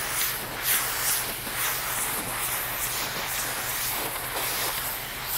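Steady hiss and splash of water from a high-flow pressure washer wand spraying across concrete. The wide, low-pressure tip gives a soft, full spray.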